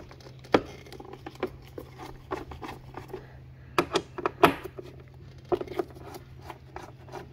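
Irregular clicks and light taps of a T25 Torx driver and the plastic air filter housing as its screws are undone, with a cluster of sharper clicks about four seconds in.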